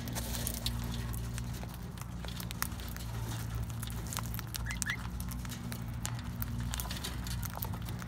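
Cockatiels pecking and cracking seed from a seed treat stick and a seed-covered floor: many small sharp clicks and crunches, with one short chirp about halfway through. A steady low mechanical hum runs underneath.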